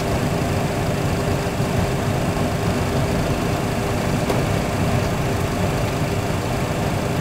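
A Boeing 737 full flight simulator's cockpit sound during the landing roll-out: a steady rumble of engine and runway noise with a low hum, with one engine shut down and no thrust reversers in use.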